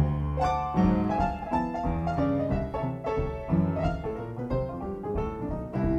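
Background piano music: a melody of held notes over low bass notes.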